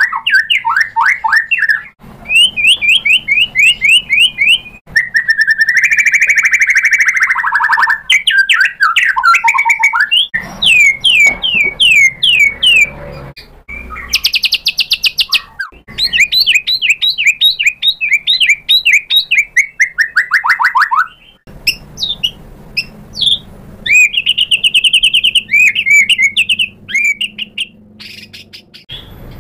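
White-rumped shama (murai batu) in vigorous, loud song: rapid runs of sweeping whistled notes and trills. The phrases change every second or two, with brief breaks between them.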